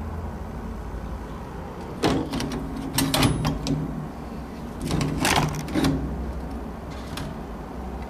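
Pipe wrench gripping and turning the threaded collar of a Sargent doorknob counterclockwise to loosen it: three bursts of metal clicking and scraping, about two, three and five seconds in.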